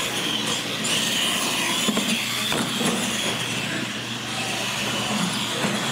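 Electric R/C monster trucks running on a concrete floor: a steady whir of small motors and tyres, with a couple of short knocks about two seconds in.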